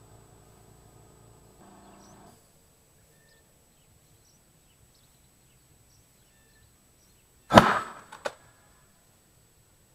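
Compressed-air cannon firing a water-filled beer can: one sudden loud blast about three-quarters of the way through, followed by a second, smaller bang under a second later.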